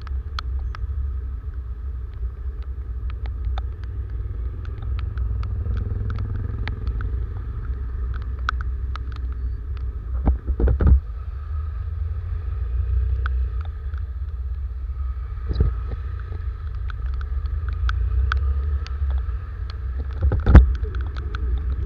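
Motorcycle engine running at low speed in slow traffic, a steady low rumble, with raindrops ticking sharply on the camera. Two louder knocks stand out, one about halfway through and the loudest near the end.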